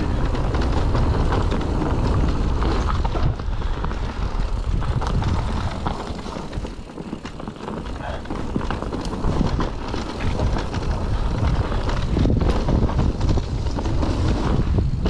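Mountain bike descending a dirt trail: wind buffeting the handlebar-mounted microphone over the rumble of tyres on dirt and leaf litter, with frequent knocks and rattles from the bike over bumps. It eases off briefly about seven seconds in.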